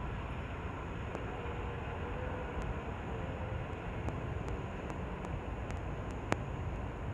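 Bengawan passenger train running on the rails: a steady low rumble with scattered light clicks and one sharper click about six seconds in.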